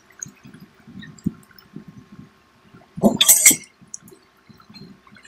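Close-up chewing and mouth sounds of people eating fried snacks, a steady run of small wet clicks and smacks, with one louder, sharper burst about three seconds in.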